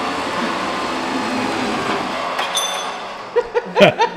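Electric winch on a pickup's front bumper reeling in cable, a steady mechanical whir that fades out about three seconds in. A single sharp metallic ping rings out about halfway through, and men start laughing near the end.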